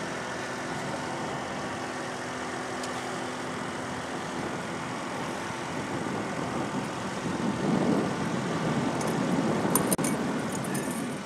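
Boat motor running steadily with a low hum. In the last few seconds a louder rough rumble and a few sharp clicks come in over it.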